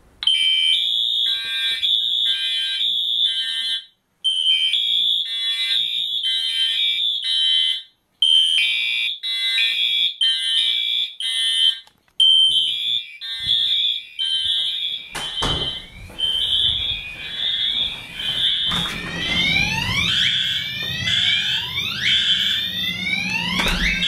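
Fire alarm horns sounding during a system test, several at once in a rapid, pulsing pattern that cuts out briefly about every four seconds. From about fifteen seconds in, repeated rising whoop-like sweeps and a low hum join in, with a few sharp clicks.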